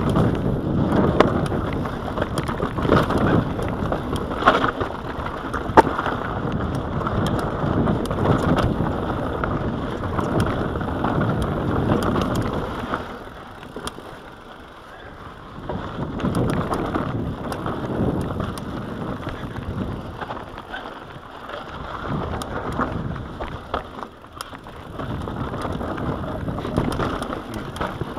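Mountain bike rolling downhill on rocky dirt singletrack: a continuous rushing of tyres over dirt and stones, with sharp knocks and rattles from the bike. The noise eases for a couple of seconds about halfway through, then picks up again.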